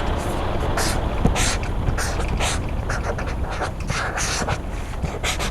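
Pencil scratching across paper in quick, irregular strokes, over a steady background of rain.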